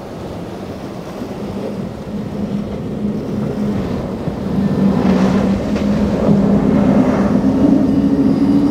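Quad Mercury 400R outboard engines on a Freeman 37VH center-console running hard through chop, a steady engine note growing louder as the boat approaches, rising in pitch near the end. Hiss of hull spray and wind under it.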